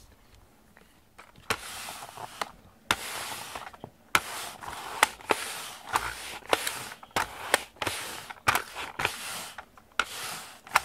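Reusable pet hair remover roller rubbed quickly back and forth over a carpet mat, starting about a second and a half in: repeated scraping swishes, each stroke ending in a sharp click.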